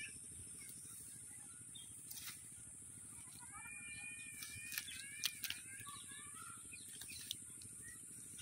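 Faint outdoor ambience with birds chirping, loudest between about three and five seconds in, over a steady high hiss, with a few short sharp clicks.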